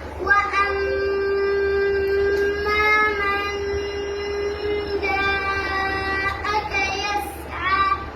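A man reciting the Quran in a melodic, chanted style, holding long, high, steady notes. A long drawn-out phrase breaks off about five seconds in, and a shorter ornamented phrase follows near the end, over a steady low hum.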